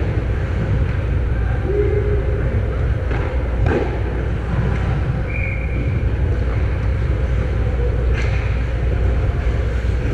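Ice hockey game sound from a camera mounted on the goal: a steady low rumble with a few sharp clacks from sticks and puck, about three seconds in, just before four seconds and again past eight seconds.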